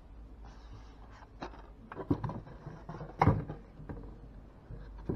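Contents being packed back into a cardboard gift-set box: light rustling with a few scattered knocks, the loudest about three seconds in.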